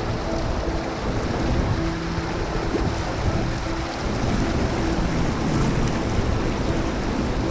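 Steady, loud rush of fast-flowing stream water over rocks.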